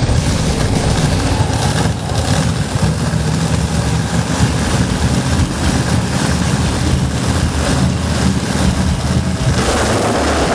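Monster truck engine idling with a deep, steady rumble that echoes in a large indoor arena. About a second before the end the noise grows broader and louder.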